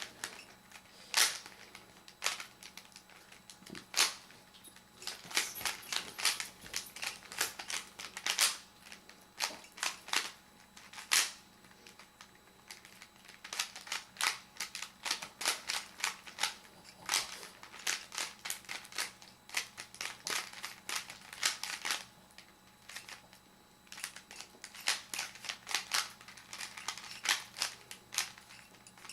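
Worn, sticky Rubik's Cube turned fast by hand: plastic layers clicking and clacking in quick irregular runs, with now and then a louder snap.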